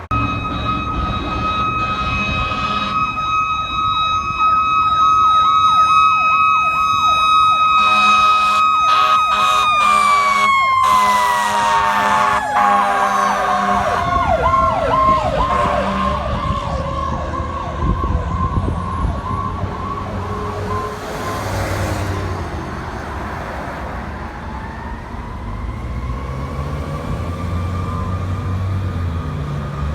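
Emergency vehicle sirens: one siren holds a single high tone while a second siren yelps rapidly. Air horn blasts come in about eight to ten seconds in. The steady siren then winds down in pitch over several seconds, leaving heavy vehicle engine rumble and a faint siren rising again near the end.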